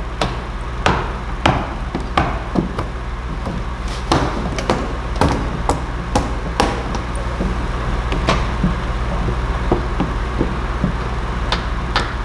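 Irregular sharp clicks and taps, about one or two a second, over a steady low hum, as a squeegee is worked over wet paint protection film on a plastic headlight lens.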